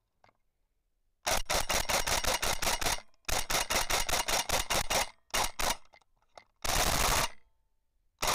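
Airsoft rifle firing in bursts of rapid, sharp clicking shots, about seven a second, with two long strings, a short one, and a denser burst near the end.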